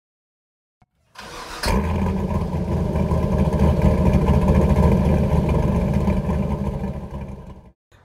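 A car engine starting up about a second in and catching with a burst, then idling steadily until it fades out near the end.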